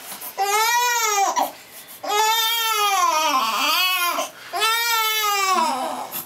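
Newborn baby crying hard while being wiped down with a washcloth in a sponge bath: three long wails, each rising and falling in pitch, with short gasps for breath between them.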